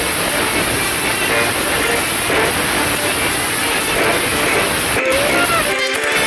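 Background music track, dense and hissy at a steady level, with a rising melodic note and a brief break near the end.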